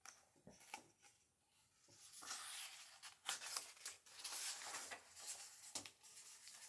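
Pages of a hardcover picture book being handled and turned: faint paper rustling and rubbing, with a few light taps in the first second.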